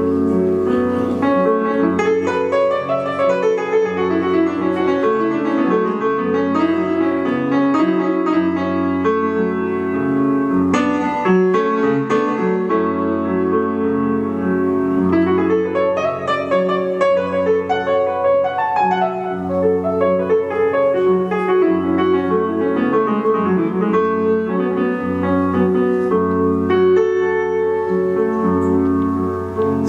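Grand piano playing an instrumental passage of held chords and a moving melody line.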